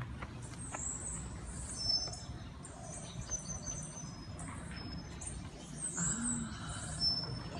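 Birds chirping with short, high, quick notes, some of them sliding in pitch, over a steady low background rumble.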